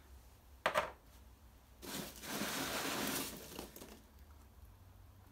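Hands rummaging through foam packing peanuts in a cardboard box, a rustling crunch lasting about a second and a half, as a small plastic vial is dug out. A short sharp knock comes just before it, under a second in.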